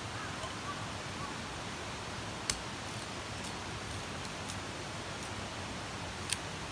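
Two sharp clicks of chopsticks against a camp pot or mess tin while eating, about four seconds apart, over a steady rushing hiss.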